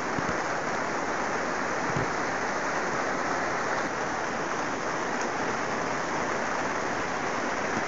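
Rain falling on the plastic sheeting of a PVC-framed greenhouse, heard from inside as a steady, even hiss.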